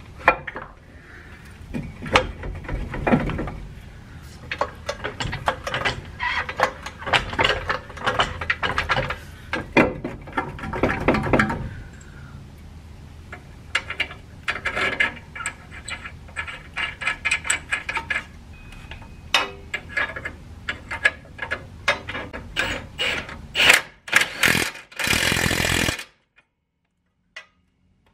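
Hand tools clicking and clinking against steel suspension parts as a lower control arm's ball joint is fitted into the steering knuckle, with stretches of rapid ratchet-like clicking. Near the end comes a loud steady burst of about a second, then the sound drops away.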